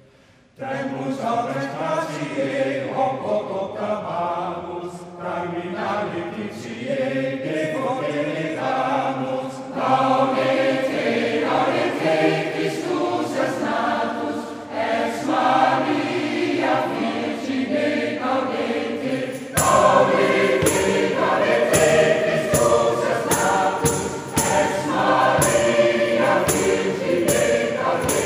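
Large mixed choir singing, starting again right after a short break. About two-thirds of the way in, a regular beat joins in and the singing grows louder.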